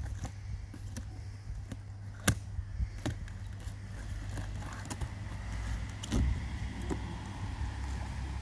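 A blade slitting the packing tape on a cardboard box and the flaps being pulled open: scraping and rustling of cardboard with a few sharp clicks and knocks. The loudest knock comes about two seconds in and another cluster comes about six seconds in, over a steady low rumble.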